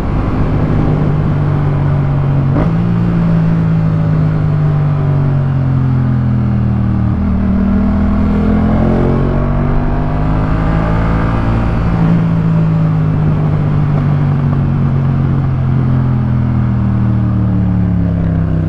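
2018 Yamaha MT-07's 689 cc parallel-twin engine running through a full Jeskap K4 aftermarket exhaust while riding, its pitch falling and climbing again several times with the throttle. A short sharp click about two and a half seconds in.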